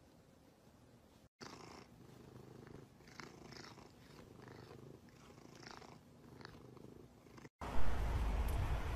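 A domestic cat purring steadily while being scratched under the chin, with a few brief higher sounds over the purr. About seven and a half seconds in, it cuts off suddenly and a much louder steady outdoor noise with a deep rumble takes over.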